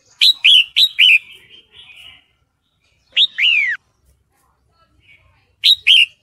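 Red-whiskered bulbul calling: three bursts of sharp, down-slurred whistled notes in quick pairs, four notes in the first second, two longer ones about three seconds in and two more near the end, with softer chatter after the first burst. The call is given as that of a female in breeding condition calling a male.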